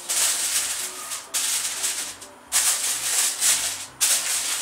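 Aluminium foil crinkling and rustling as it is pressed and crimped over the rim of a bowl, in three stretches with a lull about a second and a half in.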